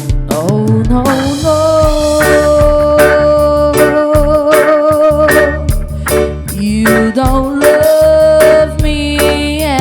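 Live reggae band playing: a steady bass line under short chopped chords about twice a second, with a long wavering melody note held over them.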